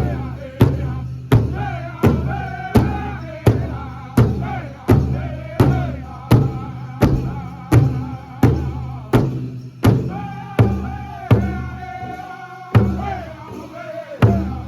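Powwow drum group singing a chicken dance song: a steady unison beat on the big drum, about one and a half strokes a second, under high-pitched group singing. The singers hold a long high note from about ten seconds in.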